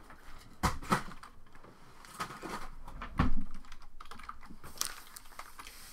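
Foil-wrapped trading-card packs being handled and set down in a stack on a tabletop: scattered light taps and clicks, with a heavier thump about three seconds in.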